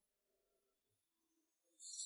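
Near silence: faint room tone. Just before the end a steady, high-pitched hiss starts up.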